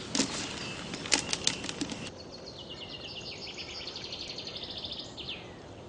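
Crackling handling noises for about two seconds, then a small bird sings a rapid, high trill of ticks that steps in pitch and ends with a short falling note.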